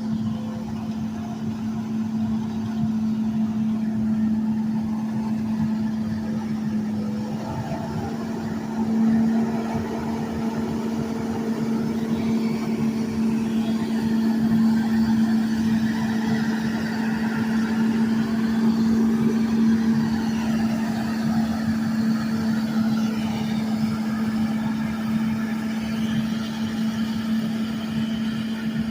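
An engine running steadily at one speed, a constant hum, with fainter machinery sounds coming and going behind it.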